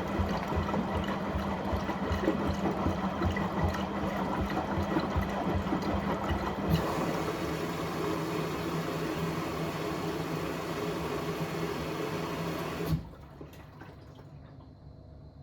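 Household washing appliance running a cleaning cycle with a dishwasher tablet: water churning and splashing over a steady motor hum. The pitch and character shift about halfway through. About 13 s in it stops abruptly, leaving only a faint hum.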